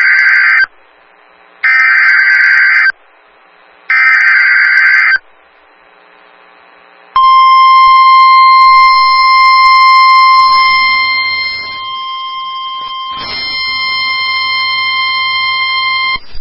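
Emergency Alert System SAME header: the end of one screechy digital data burst and then two more, each about a second long and about two seconds apart. A few seconds later the NOAA Weather Radio 1050 Hz warning alarm tone comes on, a steady single high beep held for about nine seconds, dropping a little in loudness partway, which signals that a warning message follows.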